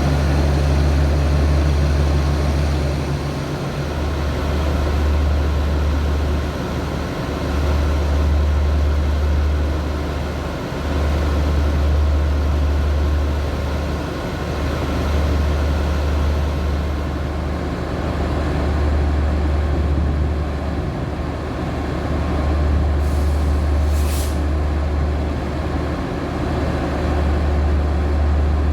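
Alsthom diesel-electric locomotive's engine running with a steady, heavy low rumble that swells and eases every few seconds. A short hiss comes near the end.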